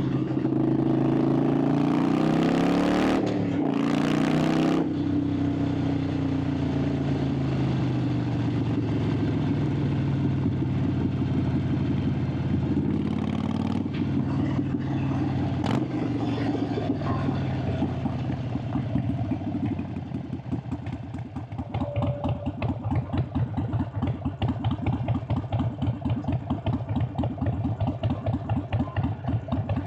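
Harley-Davidson Sportster 883's air-cooled V-twin, heard on board: the revs climb over the first few seconds, then the engine runs on steadily and eases off. For the last ten seconds it settles into a slow, loping idle of about three or four exhaust beats a second.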